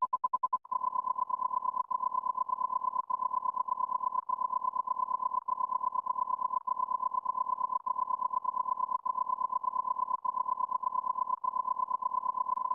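Steady high electronic beep tone. It pulses rapidly for the first half second, then holds, with a brief break about every second and a quarter.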